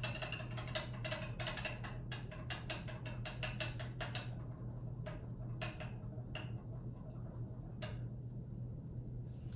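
Glass flask under a burette clinking in quick light taps, about four a second, as it is swirled during a titration. The taps thin out to a few scattered clinks about four seconds in, over a steady low room hum.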